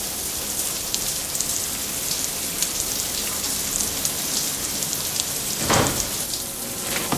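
Shower water from an overhead rain shower head pouring and splashing steadily, a hiss of falling water with many small drop patters. A brief louder rush cuts through about six seconds in.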